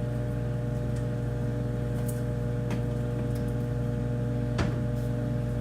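Microwave oven running with a steady electrical hum, with a few light clicks or taps, the loudest about four and a half seconds in.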